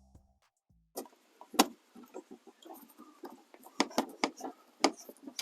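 Background music cuts off at the start, then after a second's pause comes an irregular run of light clicks and knocks: objects being handled and set down.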